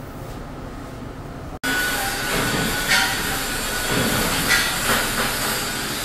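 Quiet steady workshop hum, then after an abrupt cut about a second and a half in, loud industrial machine noise with repeated high metallic squeals and hisses.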